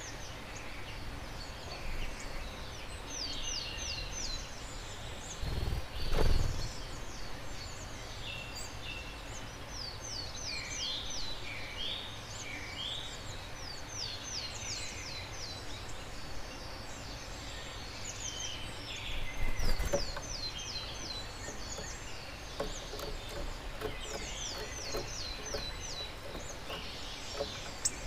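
Garden birdsong: a bird repeats rapid runs of short, high, falling notes, with other scattered chirps a little lower, over a steady outdoor hiss. Two brief low rumbles, about six seconds in and again near twenty seconds, are the loudest moments.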